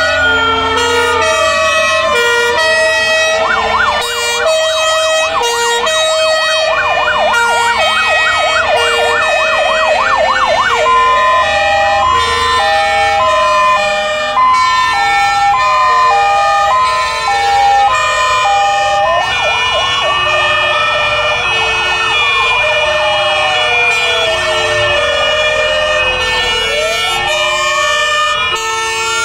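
Several fire engine sirens sounding together as fire trucks drive past: slow rising-and-falling wails, a fast yelp from about three seconds in until about ten, and two-tone sirens stepping between a high and a low note, over the trucks' engines.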